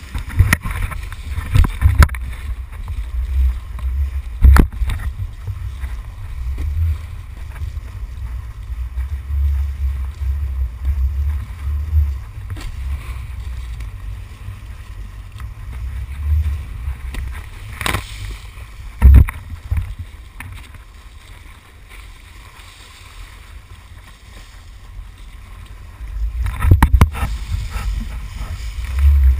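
Wind buffeting and water rushing on a pole-mounted action camera as a kitesurf board skims over chop, a gusty low rumble with several sharp knocks and splashes as spray and water hit the camera. It eases off for a few seconds about two-thirds of the way through, then grows busier with splashing near the end.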